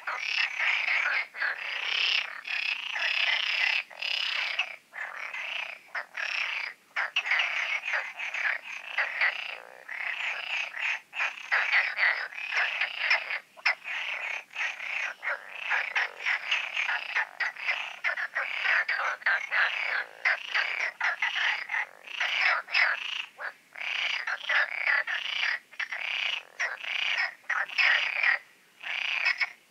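Many frogs croaking together in a dense chorus of overlapping calls, with a few brief lulls.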